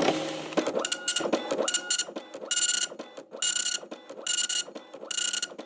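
Dot-matrix impact printer printing: the print head buzzes across the paper in six short passes about 0.85 s apart, with brief pauses as the carriage turns and the paper advances.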